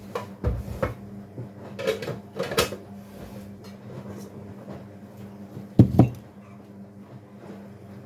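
Household knocks and clunks, several in the first three seconds and a louder double clunk about six seconds in, over a steady low hum of a washing machine running.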